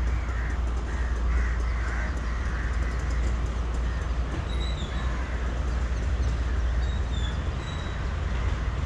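Crows cawing several times in quick succession over the first couple of seconds, over a steady low rumble of wind or distant traffic, with a few faint higher bird chirps later.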